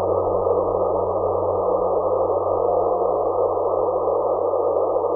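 Steady muffled hiss from an RTL-SDR receiver in LSB mode on the 143.05 MHz GRAVES radar frequency, with a low hum underneath. Near the middle a faint steady tone lasts about half a second: a weak meteor echo of the radar signal.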